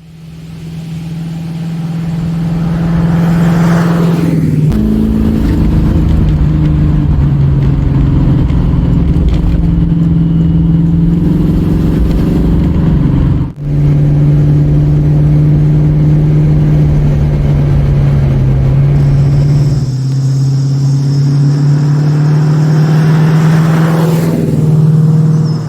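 Chevy Vortec 350 V8 in a Cutlass running steadily with a low rumble, its pitch shifting slightly a few times, with a brief break about halfway through. The engine runs smoothly with no misfire now that the intake manifold gaskets have been replaced.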